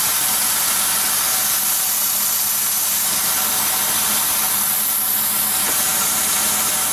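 Compressed air hissing steadily from a blow gun pushed into a truck's heater hose, blowing out the heater core and forcing old coolant and crud out into a bucket.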